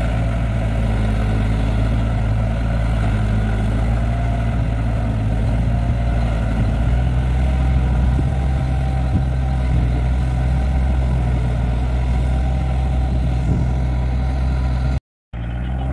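Engine of a rice harvester converted into a soil tiller, running steadily under load as it drags its tiller through flooded paddy mud. The sound cuts out for a moment near the end.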